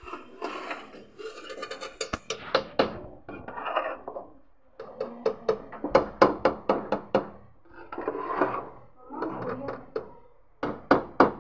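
Metal spoon scraping and clinking against the side of a large metal pot while boiled rice is turned and mixed, with runs of quick clinks about six seconds in and again near the end.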